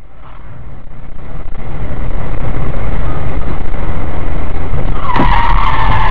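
Road and engine noise heard from a dash camera inside a moving car, swelling over the first couple of seconds and then running steadily. About five seconds in there is a knock, and a loud sustained high squeal sets in: tyres screeching under hard braking as the car closes on a police car crossing its path.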